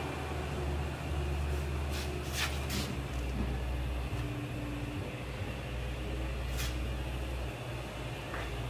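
Heavy truck idling, a steady low hum, with four short hisses of air.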